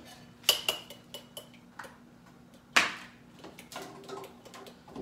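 Dishes and kitchenware clinking and knocking as they are handled and moved at a kitchen sink: a few light clicks, the first ones leaving a brief ringing tone, then a louder clunk about three seconds in. A faint steady hum runs underneath.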